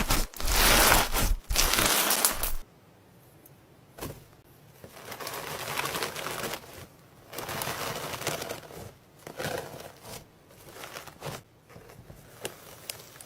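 Slime being squeezed and pressed by hand, giving irregular crackling, crinkling squishes: a loud dense run for the first two and a half seconds, then quieter scattered squishes.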